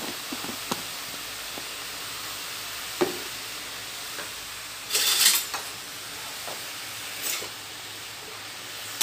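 Wild mushrooms with salt and turmeric sizzling in a kadai as they give off their water, with a steady hiss. A metal spatula stirs and scrapes them several times, loudest a little after halfway through.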